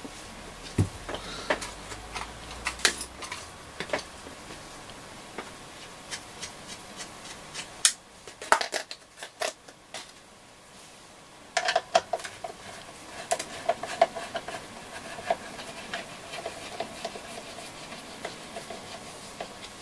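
Small clicks and knocks of a screwdriver and screws being handled at a transistor radio's wooden cabinet, scattered through, with a denser clatter about eight seconds in and again about twelve seconds in, where a faint squeak runs for a few seconds.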